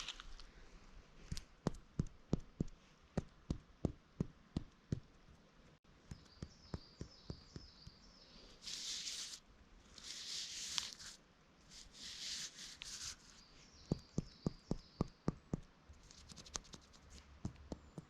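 Footsteps on a forest path at a steady walking pace of about two steps a second, with a pause in the middle where birds chirp in short high bursts.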